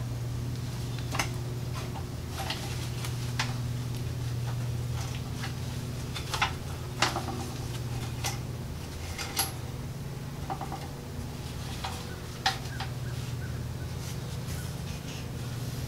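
Scattered sharp metallic clicks and clinks of hand tools and hardware as an engine is bolted onto the steel mini bike frame. A steady low hum runs underneath.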